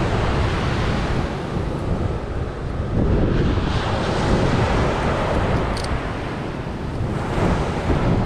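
Surf washing onto a beach, with wind buffeting the microphone: a steady rushing noise that swells about three seconds in.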